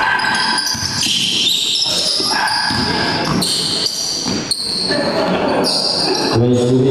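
Basketball game in play on an indoor court: short high-pitched sneaker squeaks, the ball bouncing now and then, and voices echoing in the hall.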